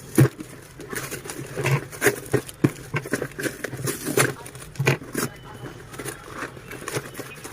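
Toy packaging being handled and opened: irregular crinkling, rustling and small clicks and taps.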